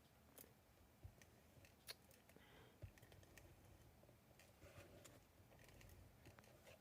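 Near silence with faint paper handling: a few light clicks and soft rustles as card stock is handled.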